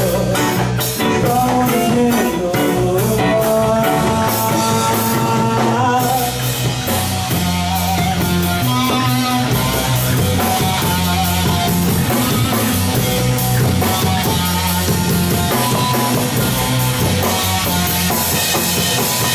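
Rock band playing an instrumental passage: distorted electric guitar, bass and drum kit, the full band coming in harder about six seconds in.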